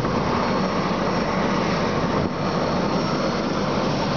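Steady, unbroken drone of an engine or machine running, with a few faint thin steady tones over it.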